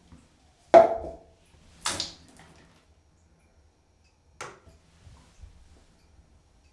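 Three short, sharp sounds in a small bathroom: the loudest just under a second in, fading over about half a second, a hissier one about two seconds in, and a weaker one about four and a half seconds in.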